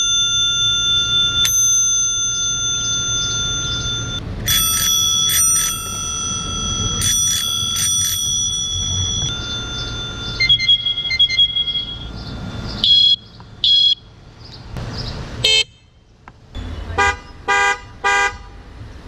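A Crane Suzu brass bicycle bell is struck once, rings out long, is struck again, then is rung rapidly in two runs. An Orp Smart Horn follows with a quick run of electronic beeps and then two short loud blasts. A Ford car horn honks three times in short beeps near the end.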